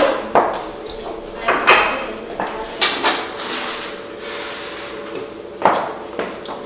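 Dishes and cutlery clinking and clattering: a handful of separate knocks and rattles spread over several seconds, as plates and utensils are handled and set down.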